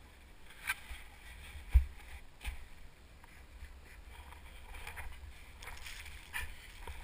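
Telemark skis and poles knocking and scraping through deep snow among branches, over a steady low rumble. Several sharp knocks are spread through it; the loudest is a heavy thump just under two seconds in.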